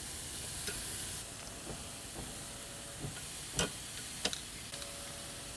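Marinated beef short ribs sizzling steadily on a hot charcoal grill grate, with a few sharp clicks of metal tongs. The loud sizzle is the sign that the grill is hot enough.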